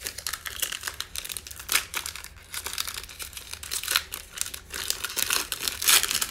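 Foil wrapper of a Prizm football trading-card pack being torn open and crumpled by hand: a dense, irregular run of crinkling and crackling.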